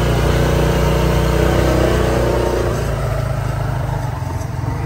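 Small motor scooter engine running as the scooter pulls away. Its engine note is strongest for the first two seconds or so, then fades steadily as it moves off.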